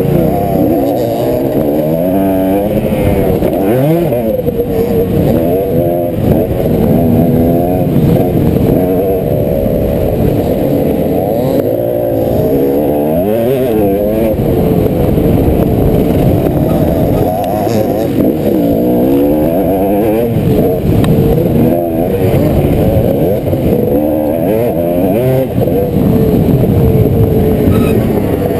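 Motocross dirt bike engine revving hard, its pitch rising and falling over and over with the throttle through turns and straights, picked up by a helmet-mounted camera on the rider.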